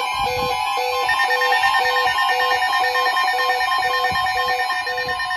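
Emergency Alert System attention tones: a steady two-tone alert signal layered with a low beep repeating about twice a second, with a higher pulsing tone joining about a second in. They announce a severe thunderstorm warning.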